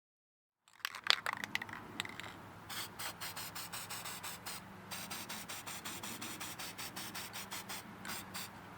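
A couple of sharp clicks about a second in, then short scraping, rubbing strokes several times a second as Disc Brake Quiet is worked onto the backs of brake pads.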